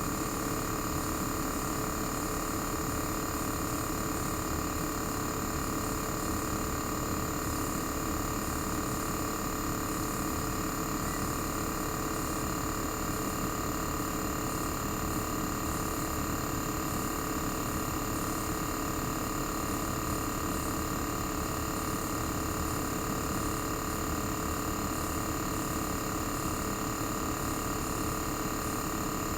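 Panasonic CU-227CF inverter air conditioner's single-rotary compressor running at a steady speed, heard raw through the opened sound insulation: a constant hum with several fixed tones, including a high whine, over an even rushing noise.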